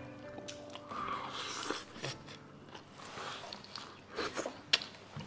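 People eating at a table: soft chewing and biting, with a few light clicks of utensils against dishes, most of them near the end.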